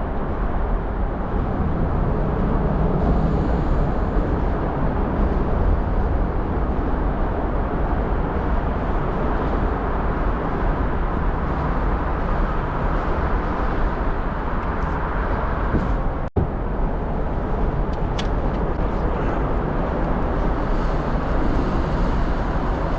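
Loud, steady rushing noise, heaviest in the low range, which drops out for a split second about sixteen seconds in.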